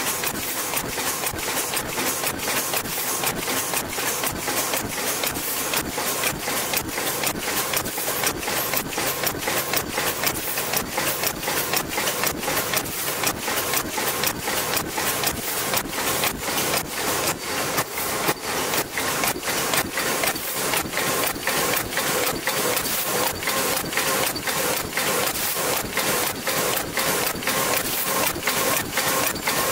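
Paper bowl forming machine running at production speed: an even, fast mechanical clatter of several strokes a second as its rotary turret indexes and presses the bowls, over a steady hum.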